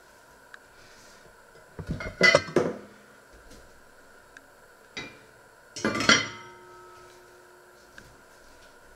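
Cookware clanking: a few sharp clanks about two seconds in, then a heavy enamelled casserole lid set down on its pot about six seconds in, with a clank that rings briefly.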